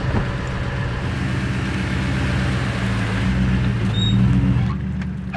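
Truck engine running with a steady low drone that eases off near the end, with a brief faint squeak about four seconds in.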